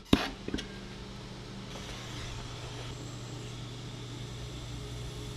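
Two sharp clinks of small tools on a jeweller's workbench near the start, the first the loudest, over a steady workshop hum. A faint even hiss joins about two seconds in.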